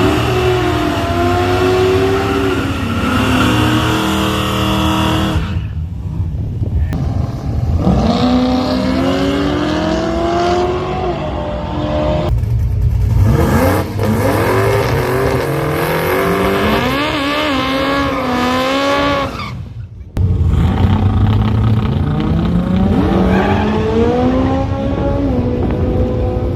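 Drag-race cars running at full throttle, their engines revving up through the gears in several separate runs, with short breaks between them.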